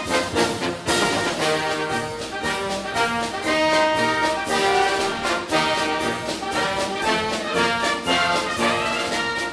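Orchestral background music led by brass, held chords over a steady percussive beat.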